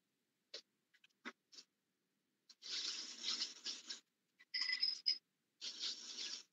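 A few soft clicks, then three stretches of scratchy rustling, the middle one with a faint squeak, from something being handled or brushing close to the microphone.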